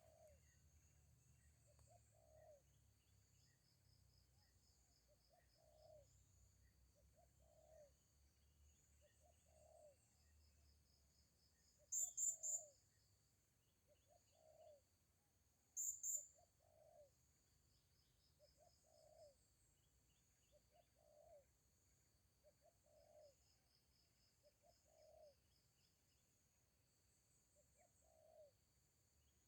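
Forest birds calling faintly: a short low call repeated every couple of seconds, runs of a fast, thin, high trill, and two loud shrill chirps about twelve seconds in and again four seconds later.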